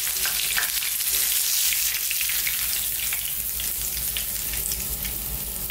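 Hot shallow oil sizzling and crackling around a pan-fried sea bass fillet as it is lifted out of the frying pan with a slotted spatula. With the heat turned off, the sizzle eases slowly toward the end.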